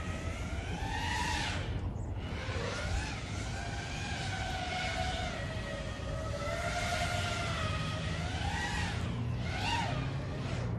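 Five-inch FPV freestyle quadcopter's brushless motors (Johnny FPV 2306 2250kV) whining in flight, the pitch sliding up and down as the throttle changes, with a drop about two seconds in and a quick sharp rise near the end.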